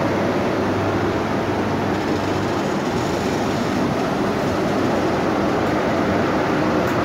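Pair of British Rail Class 90 electric locomotives pulling an intermodal freight train slowly away past the platform. The second locomotive, 90044, passes close by with a loud, steady running noise and a low hum underneath.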